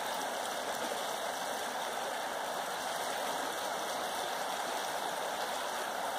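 Shallow river water running steadily over a rocky riffle: a constant rushing noise.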